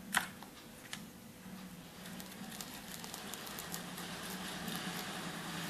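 Glass jar full of small paper origami stars being handled: a couple of soft clicks near the start, then a faint patter of many small ticks that grows slowly louder.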